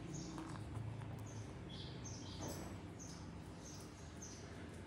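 Table knife scraping strawberry conserve across toast, with a clear scrape about two and a half seconds in. Short high chirps repeat throughout over a steady low hum.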